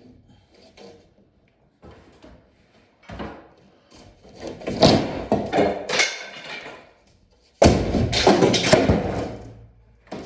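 Wooden boards and debris being knocked, pulled and thrown down during demolition prep. A few light knocks lead into a long stretch of clattering, then a sudden heavy crash a little before the end, with clatter that fades away.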